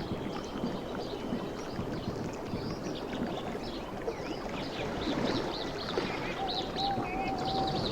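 Sea water lapping and splashing at the shore in small waves. Short high chirps run over it, and a held whistled note comes near the end.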